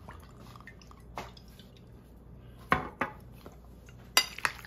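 About five sharp clinks of a porcelain spoon and bamboo chopsticks against a ceramic bowl while chicken pieces are mixed into their marinade. The loudest comes a little past the middle, and two come close together near the end.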